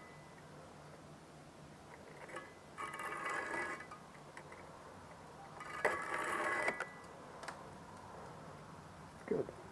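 Thin insulated wire pulled through a homemade roller wire stripper with a razor blade, twice: each pull is a scraping, slightly whining rasp of about a second, the two about three seconds apart.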